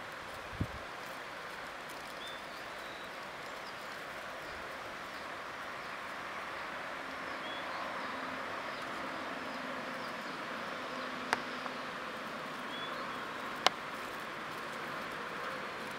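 Countryside outdoor ambience: a steady high hiss with a few short bird chirps, a faint low hum through the middle, and two sharp clicks in the second half.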